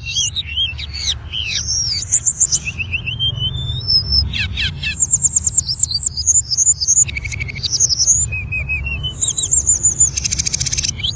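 Tledekan, a blue flycatcher, singing a fast, varied song of high whistled notes that slur up and down in quick runs, with a short buzzy rattle near the end, over a steady low hum.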